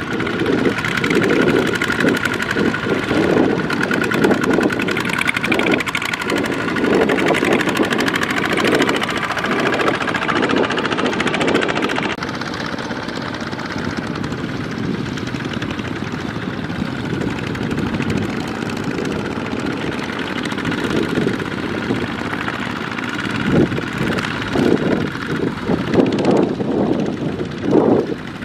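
Kubota ZT155 single-cylinder diesel engines on two-wheel walking tractors running hard as they pull loaded trailers through deep mud, with a pulsing beat. The sound changes abruptly about twelve seconds in and the pulsing grows strong again near the end.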